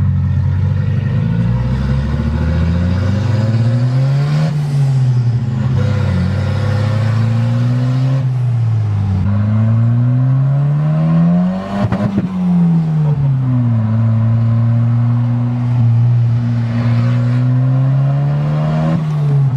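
Turbocharged Volvo 740 engine heard from inside the cabin while driving. The revs climb and fall back several times, with a sharp drop and a knock about twelve seconds in, like a gear change, then it holds steady.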